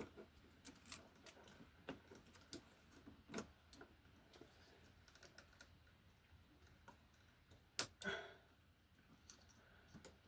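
Faint, scattered small clicks and ticks of pliers and copper wire being worked into a plastic lever wire connector, with one sharper click and a brief scrape about eight seconds in.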